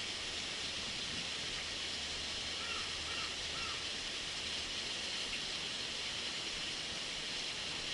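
Steady rush of flowing water, with a few faint short chirps about three seconds in.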